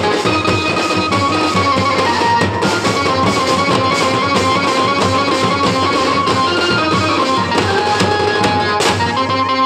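A street band of large double-headed barrel drums played with sticks, beating a fast, steady rhythm, with a stepping melody line on top.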